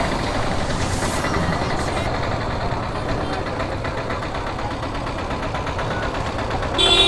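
Motorcycle engine running at low speed in stop-and-go city traffic, with street noise around it. Near the end a vehicle horn honks once, briefly and loudly.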